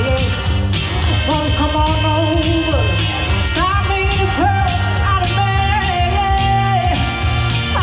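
A woman singing live into a handheld microphone over backing music, sliding up into a long held note about halfway through.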